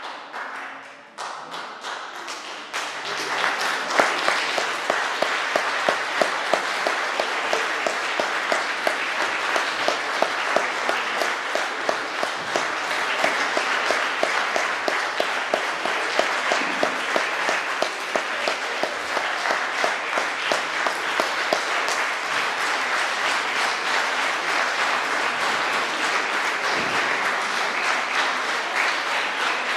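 Audience applause that swells after a brief lull, then settles into rhythmic clapping in unison at about two claps a second, before breaking back into ordinary applause.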